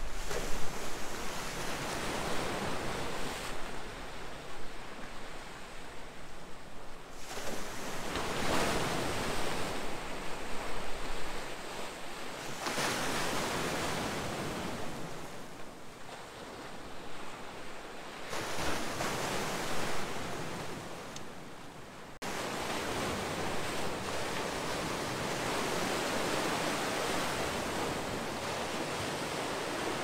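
Sea waves breaking and washing against a rock breakwater, the rush of surf swelling and falling with each wave every few seconds. About two-thirds of the way in it changes suddenly to a steadier hiss.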